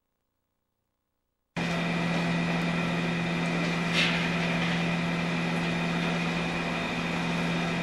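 MINI-STAR soymilk plant machinery running with a steady hum, cutting in suddenly after about a second and a half of silence, with a brief sharper noise about four seconds in.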